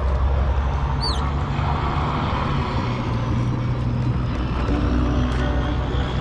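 Boat's outboard motor idling steadily, with a short high falling chirp about a second in.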